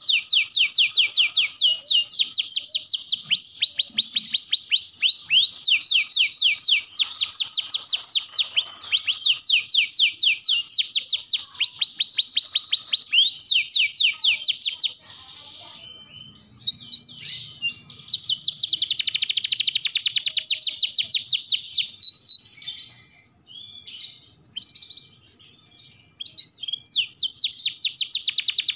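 Orange domestic canary singing: long, rapid trills of repeated high, down-sweeping notes. About halfway through the song breaks into scattered single notes and short pauses, with another burst of trilling in between, and full trilling resumes near the end.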